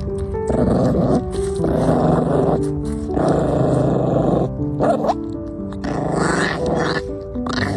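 Background music, with a dog growling in repeated short bursts over it.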